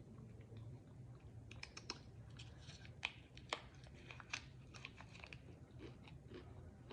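Close-up chewing of a chocolate-coated potato chip: a run of soft, crisp crunches and mouth clicks, coming faster from about a second and a half in, over a faint low hum.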